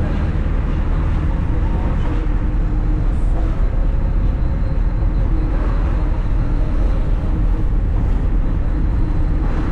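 Steady low rumble of road vehicles in motion, with no breaks or sudden events.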